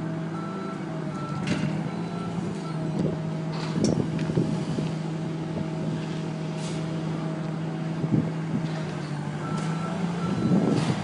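Boom lift running with a steady low hum, its motion alarm beeping about twice a second for the first few seconds and again near the end, with a few clanks around the middle.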